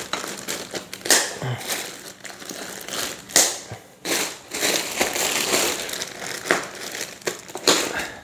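Packaging crinkling and rustling in irregular bursts as a boxed metal bed frame is unwrapped, with a few sharp snaps.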